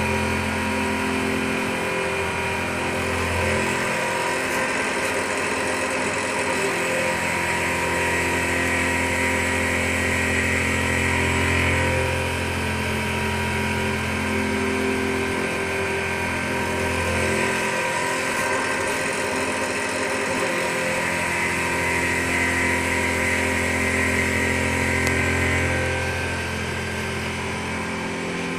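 Macpower Turn O' Mill 200 CNC turn-mill centre running a live-tool milling cut: an end mill in a driven tool holder cutting a part held in the chuck. The machine's steady hum runs under a higher cutting noise that swells and eases as the tool moves, and the low hum drops out briefly twice.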